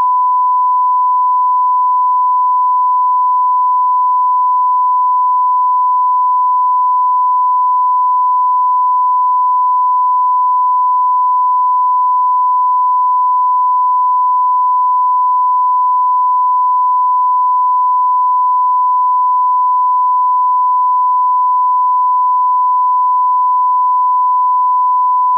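Steady 1 kHz line-up test tone, one pure unwavering pitch at a constant level. It is the reference tone that goes with colour bars at the head of a broadcast tape, used for setting audio levels.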